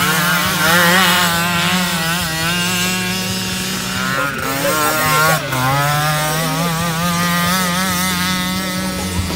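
Racing quad (ATV) engine revving hard on the dirt track, its pitch wavering up and down constantly as the rider works the throttle through the bend. The revs break briefly a little past four seconds in, then climb again.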